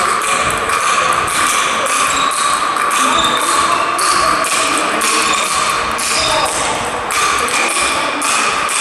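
A table tennis rally played with sandpaper bats: a fast, even run of sharp clicks from the ball striking the bats and bouncing on the table, about three a second.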